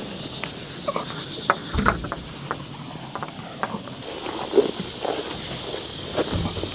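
Steady high-pitched insect drone, louder from about four seconds in, with scattered light clicks and a couple of dull thumps from a solar panel being carried across a grass yard.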